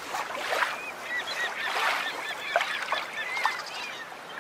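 A flock of birds calling: many short, overlapping calls over a steady noisy background, with a few louder, sharper calls among them.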